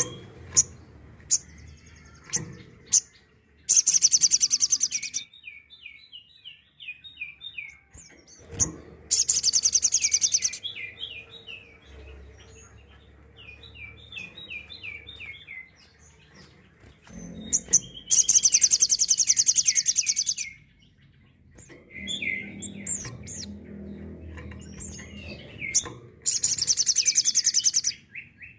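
Little spiderhunter (sogok ontong) singing its rapid-fire 'tembakan' song. Four loud, very high, fast trills of about two seconds each alternate with runs of quick, lower chirping notes.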